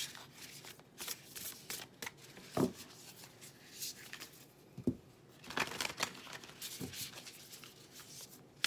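A deck of tarot cards shuffled by hand, hand over hand, with quick irregular rustles and slaps of the cards. There is a soft knock about two and a half seconds in and another about five seconds in.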